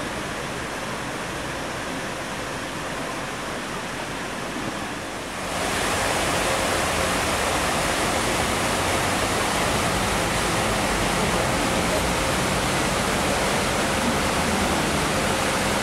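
Water from a large tiered stone fountain splashing and cascading into its basins, a steady rush that becomes louder about five seconds in.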